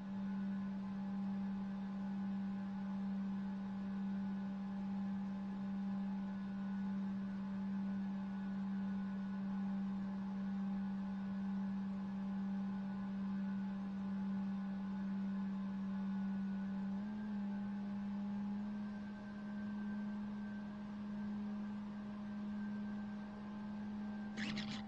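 A steady low hum from a small aircraft in flight: one held tone with fainter higher tones above it. The tone wavers briefly about 17 seconds in, and a short burst of noise comes right at the end.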